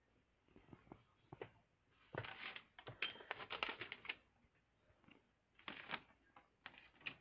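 Handling noise: scattered rustling and clicks, thickest in a burst from about two to four seconds in and again briefly near six seconds, with single ticks between.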